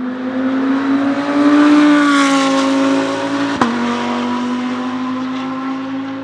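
2022 Audi R8 LMS GT3 Evo II's 5.2-litre V10 race engine accelerating hard past: the note climbs and grows loud, then bends down in pitch as the car goes by. A sharp crack and a drop in pitch, an upshift, come about three and a half seconds in, and the engine fades as the car pulls away.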